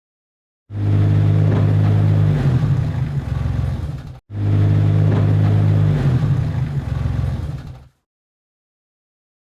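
Tractor engine running with a deep steady hum that turns rougher and more uneven after about a second and a half. The same short clip plays twice in a row, with an abrupt cut between the two.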